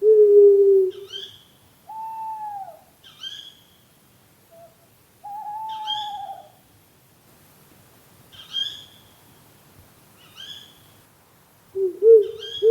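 Owls hooting: a low, drawn-out hoot at the start and again near the end, two higher arching hoots in between, and short shrill calls every couple of seconds throughout.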